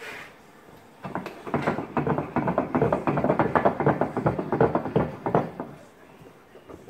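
Steel bench vise being wound by its handle: a fast, dense run of metallic clicks and rattles that starts about a second in and dies away near the end.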